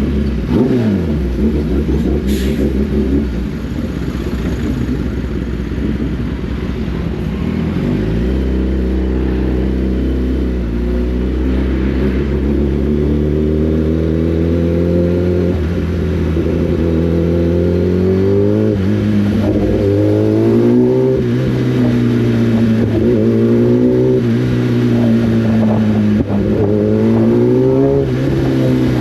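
Sport motorcycle's inline-four engine under way on the road. Its note falls at the start, holds steady for a stretch, then climbs and drops again several times in the second half as the throttle is opened and closed.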